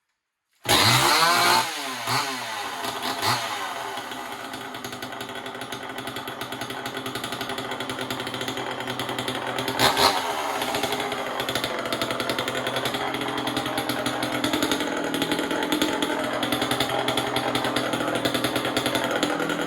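Homelite XL76 two-stroke chainsaw running: it comes in suddenly at high revs under a second in, the revs fall away with a couple of blips, and it settles into a steady idle, with one short rev about halfway through.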